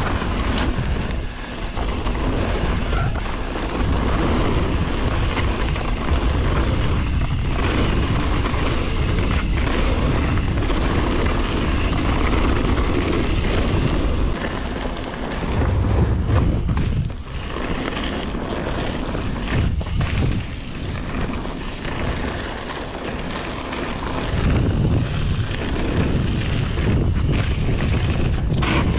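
Wind buffeting the microphone of an action camera on a mountain bike riding down a trail, a heavy low rumble over the noise of the tyres and bike on the ground.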